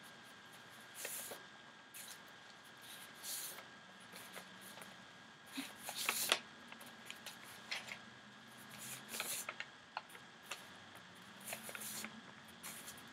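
Sheets of paper rustling and sliding as a stack of drawings is leafed through by hand, in short rustles every second or two.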